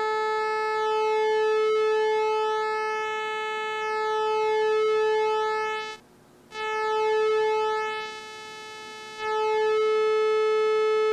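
Sequential Circuits Prophet-5 rev 2 analog synthesizer holding one sustained note on oscillator 1's pulse wave while the pulse-width knob is swept, so the tone's colour keeps shifting. The sound cuts out for about half a second about six seconds in, turns quieter again for a stretch around eight to nine seconds, then comes back at full strength.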